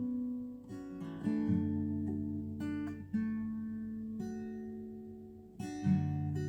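Background music: acoustic guitar playing slow chords, with a new chord struck every second or two.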